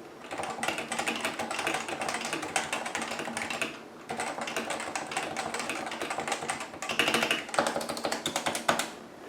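Typing on a Cooler Master CM Storm Novatouch TKL keyboard with hybrid capacitive Topre-style switches: a fast, steady run of keystrokes with a brief pause about four seconds in.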